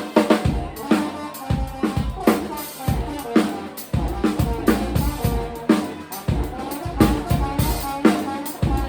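Live band playing an instrumental passage: drum kit keeping a steady beat of bass drum and snare, under bass and repeated pitched instrument notes.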